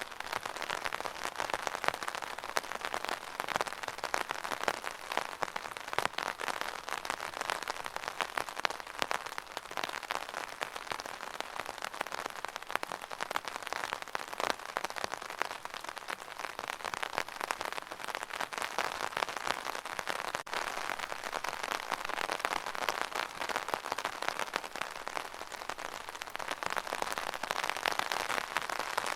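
Steady rain pattering on an umbrella canopy, a dense run of fine drop ticks with no let-up.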